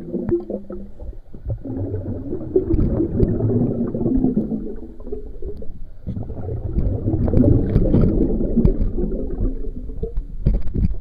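Muffled, low gurgling and sloshing of river water around a camera sitting at the waterline, which goes under the surface near the end.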